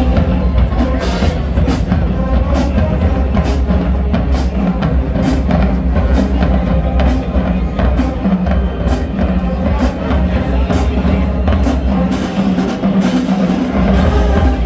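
Marching band playing a halftime show: low brass and sousaphones holding a heavy bass line under a drumline, with cymbal or snare crashes about once a second.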